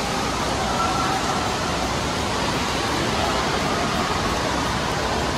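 Steady rushing noise of an indoor water park, running and splashing water with faint voices mixed in.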